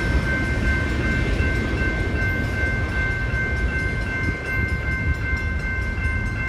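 Freight train's cars rolling away on the rails: a steady low rumble, with a steady high-pitched tone held over it.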